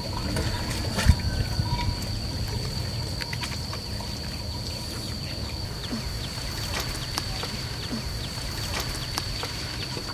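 Asian elephants shifting their weight in a wet mud wallow: soft squelching and sloshing of mud with scattered small clicks and a sharper knock about a second in. A steady high insect whine runs underneath.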